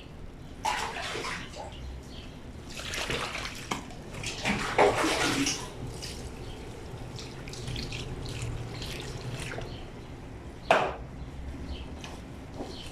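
Water splashing and sloshing as a heavy wet blanket is scrubbed and worked by hand in a granite laundry sink, in several surges over the first six seconds, with one sharp splash near the end.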